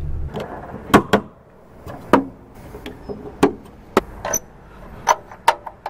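A vehicle's low engine rumble, cut off just after the start, then a string of about eight sharp clicks and knocks as an electrical plug is worked into a socket on a truck's steel front bumper.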